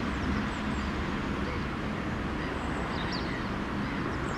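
Outdoor ambience: a steady low rumble with small birds chirping faintly now and then, a little cluster of chirps about three seconds in.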